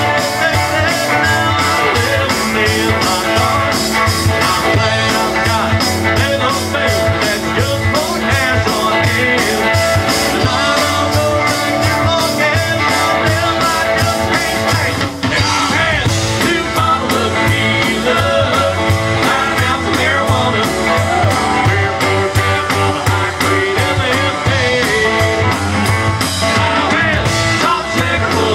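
Live country-rock band playing a song at full volume: electric and acoustic-electric guitars, bass and a drum kit keeping a steady beat, with a man singing lead.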